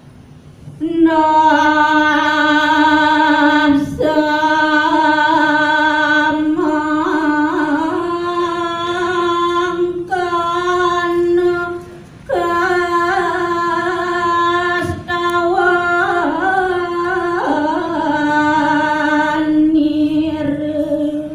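A woman chanting a verse of Balinese kakawin poetry solo and unaccompanied, in long held notes with wavering ornamental turns. The voice pauses for breath briefly about 4 s and 12 s in.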